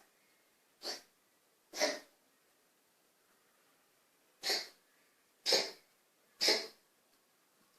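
Five short coughs from an asthma attack: two about a second apart near the start, then after a pause three more about a second apart.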